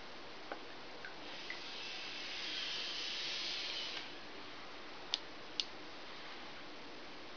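Two sharp clicks about half a second apart from the push-button switch of a handheld blue laser pointer. Before them a soft hiss swells for about two seconds over a low steady background hiss.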